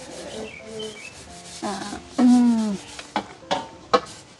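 A kitchen utensil scraping and rubbing in a cooking pot, with a few sharp clinks near the end. A short, falling vocal sound is heard in the middle.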